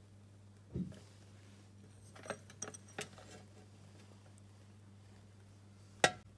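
Glass beaker being handled: a dull knock about a second in, a few light clinks a little later, and one sharp click near the end, over a steady low hum.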